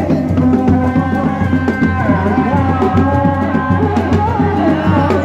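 Sundanese reak music: dog-dog frame drums beating a steady rhythm under a wavering melodic line.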